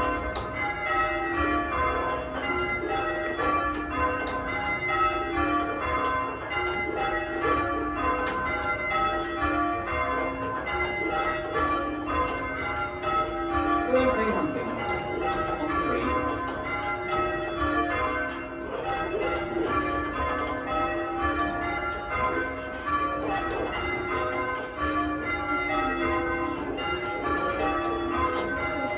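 A ring of church bells, the largest about half a ton, being rung by a band of ringers in English change-ringing style: a steady, evenly paced run of overlapping strikes with long ringing tails, heard from inside the tower.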